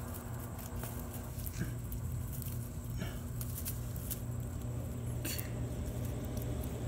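Faint rustling and a few soft clicks of a hand working in grass under a metal frame, over a steady low hum.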